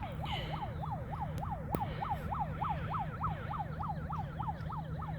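A yelp-type siren wailing, its pitch sweeping up and down about four times a second, over a steady low hum. Two brief sharp cracks come about a second and a half in.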